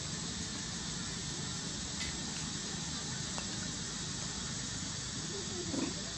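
Steady hiss of water and outdoor noise with faint splashing from macaques swimming in a shallow pond, a few light ticks, and one brief louder sound near the end.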